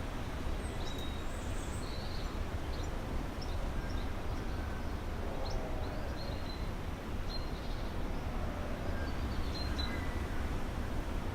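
Steady low rumble of background noise, with faint short bird chirps scattered through it.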